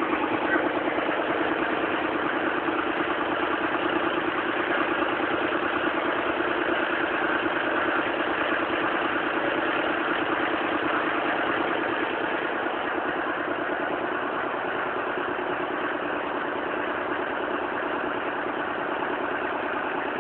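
Boat engine running steadily, an even drone with a rapid pulse that eases slightly about twelve seconds in.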